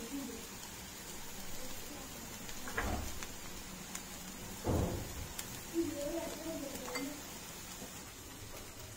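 Cooking utensils knocking against a nonstick frying pan as chilli powder is sprinkled over ivy gourd fry and stirred in with a wooden spatula: two dull knocks about three and five seconds in, then a few light clicks.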